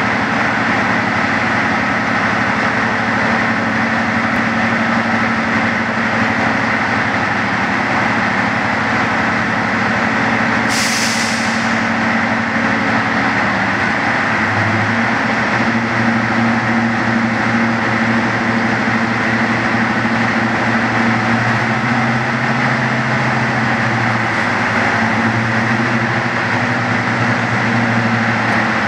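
Class 55 Deltic D9009's Napier Deltic diesel engines running with a steady drone of several tones. A short hiss of air comes about eleven seconds in. A lower engine note joins about fifteen seconds in, as the locomotive starts away.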